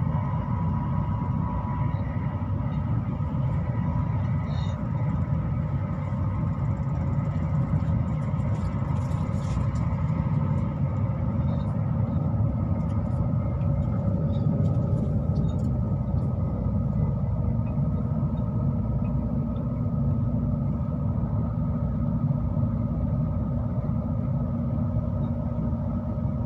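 Steady low rumble of a moving vehicle, with faint steady tones over it and a few light ticks midway.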